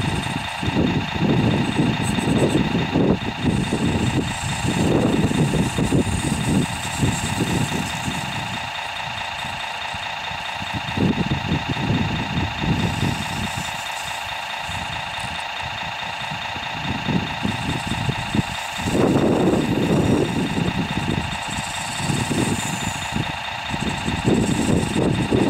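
Radio-controlled model backhoe loader running, with a steady hum and uneven low rumbles that come and go as it drives about.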